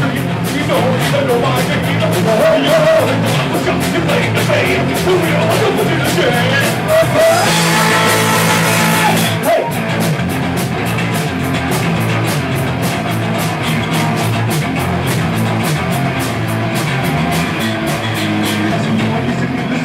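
Live punk rock band playing loud: distorted electric guitars, bass and fast, steady drumming, with a voice singing over them. A long held note comes about a third of the way in.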